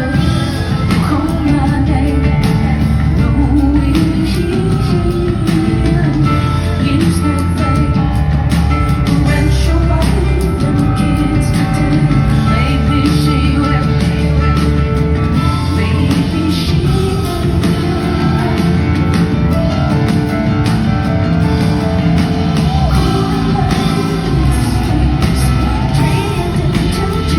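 Live rock performance, loud and continuous: a woman singing over a full band with heavy bass and a steady drum beat, heard in a large theatre hall.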